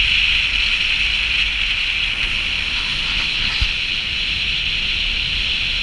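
Steady rushing road and wind noise of a car driving on a snow-covered highway, with a strong high hiss.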